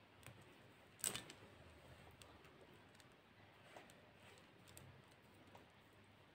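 Faint scattered clicks and ticks of pearl beads and a thin metal chain being handled, with one sharper click about a second in.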